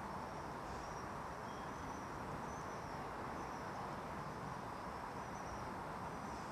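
Steady background noise with a faint, high, wavering chirping over it.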